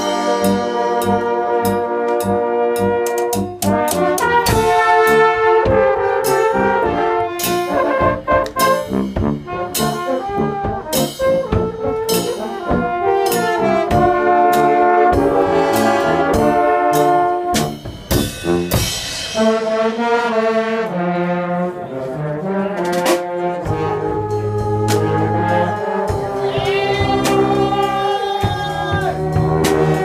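A live brass ensemble of French horns, a trombone and other brass plays a tune together in chords. The notes are short and punchy in the first half, and strong low parts come in from a little past the middle.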